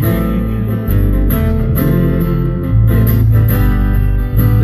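Live guitar accompaniment to a slow ballad, plucked and strummed chords over a low bass, playing between sung lines.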